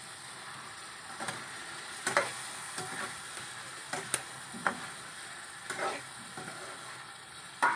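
Masala sizzling in a wok as potato pieces are tipped in and stirred, with a metal spatula knocking and scraping against the pan about once a second.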